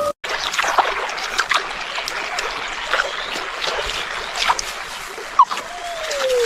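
Water splashing and trickling, with many scattered small crackles and splats. Near the end a wolf pup's howl begins, a long call that slides downward and wavers.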